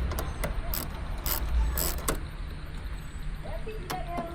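Socket ratchet wrench clicking in short, irregular bursts as a bolt is backed out of the car's front end.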